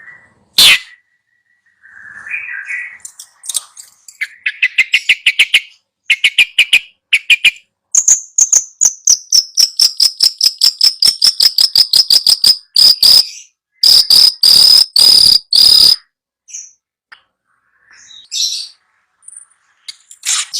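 Bird-training 'masteran' recording of songbird and insect-like calls played for a long-tailed shrike that will not sing. It runs through rapid high chirp series, then a long fast trill that slides down in pitch, then a few loud harsh calls, and ends with scattered faint chirps.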